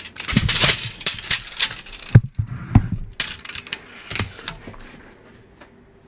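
Steel tape measure retracting: the blade whirrs and rattles back into its case for about two seconds and ends in a sharp clack as the hook hits the case. A few more clicks and a short rattle follow as the tape is handled again.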